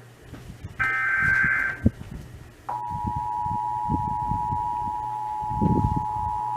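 Emergency Alert System broadcast: a burst of SAME header data screech about a second in. Then, about two and a half seconds in, the steady two-tone attention signal (853 and 960 Hz) starts and holds, announcing the Required Monthly Test.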